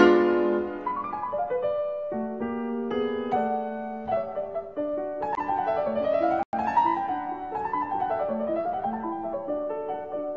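Piano music playing, with quick runs of notes rising and falling in the second half and a momentary dropout about six and a half seconds in.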